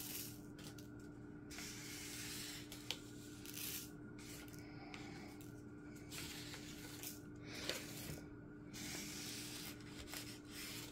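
Faint rustling and scraping of a paper card being swept over the table to scoop up loose resin diamond-painting drills, in irregular strokes with a couple of small clicks.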